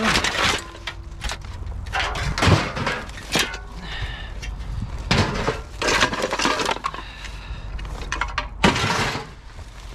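Scrap being pulled out and tossed about: a run of clattering knocks and crashes, a couple of them ringing on briefly.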